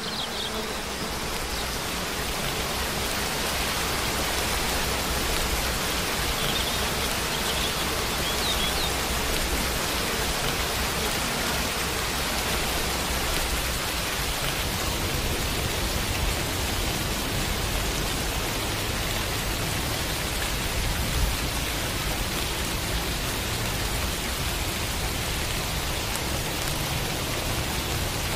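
Steady rain falling, an even hiss of many drops.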